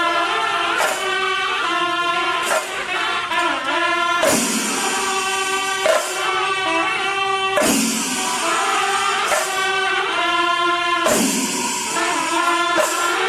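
Background music: a song with a held, bending melody line, likely sung, over a percussive accent a little under every two seconds.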